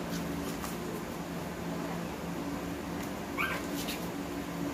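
A one-week-old husky puppy gives a single brief, high squeak about three and a half seconds in, over a steady low hum.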